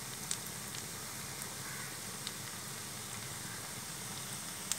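Batter-coated cauliflower frying in hot coconut oil in a pan: a steady sizzle with a few sharp pops now and then.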